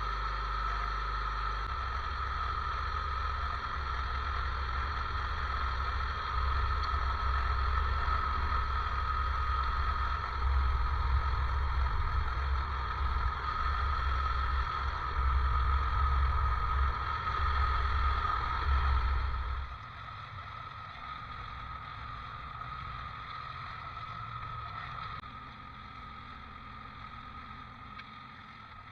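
Tractor engine working hard with a steady high whine over a low rumble. About two-thirds of the way through it drops sharply to a much quieter run, easing down a little further near the end.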